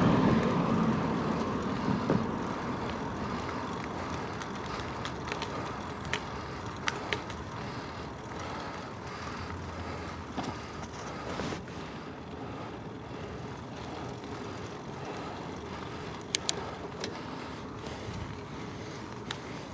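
A motor vehicle passing close and fading away over the first couple of seconds, then the steady rolling noise of a Surly Bridge Club bicycle on the road, with scattered short clicks and rattles.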